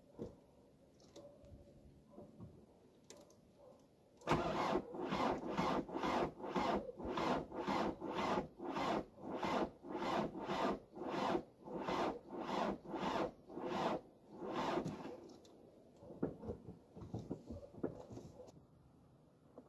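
VW Passat B4 1.9 TDI diesel being cranked by its starter in the cold, very slowly, about two labouring compression strokes a second for some ten seconds starting about four seconds in, then slowing and dying away without the engine catching. The slow cranking points to a battery too weak to start a cold diesel.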